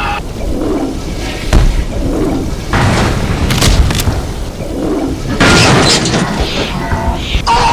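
Dubbed-in action sound effects for an animated fight: a string of deep booms and sharp hits over a low rumble, with a longer crashing burst about five and a half seconds in, and music underneath.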